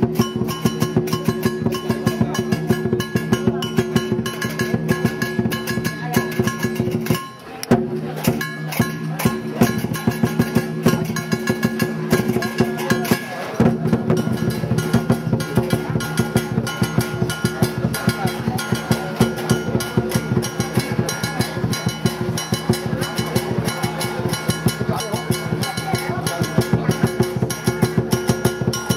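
Lion dance percussion: a drum beaten in a fast, steady rhythm over ringing metal percussion. It drops out briefly about seven seconds in.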